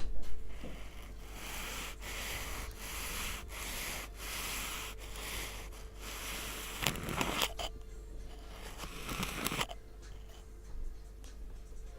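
Kinetic sand being scraped and rubbed: a crisp, grainy hiss in short repeated strokes, with two louder rasping passes, one about seven seconds in and another about nine and a half seconds in.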